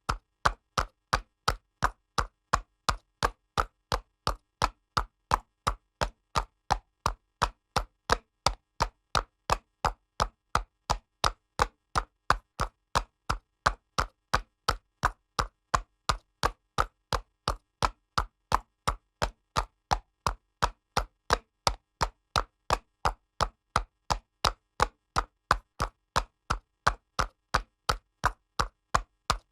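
Horse's hooves clopping on pavement at a steady trot, with sharp, even hoof strikes about three times a second.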